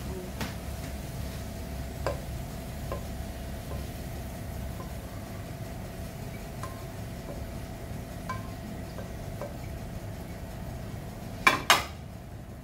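A slotted spatula scraping and tapping in a nonstick frying pan as deep-fried onions are lifted out and tipped onto paper towel, with light scattered clicks over a faint steady hum. Near the end there are two sharp knocks in quick succession, as the pan is set back down on the gas stove's grate.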